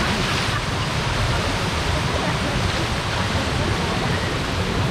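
Steady rush of water pouring from water-slide outlets into a splash pool, with a rider's splash into the pool at the very start.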